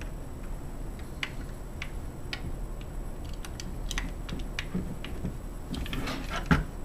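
Irregular light clicks and taps of hand work on deadbolt hardware as the lock's front and backing plate are aligned and the bolts adjusted. They come a few at a time at first, then closer together near the end, with a heavier knock just before the end.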